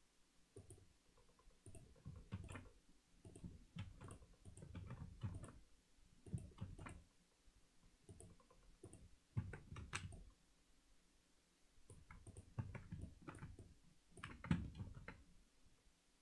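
Faint, irregular clicking of a computer mouse and keyboard: short clicks and soft taps in small clusters as keys are pressed and the mouse is clicked.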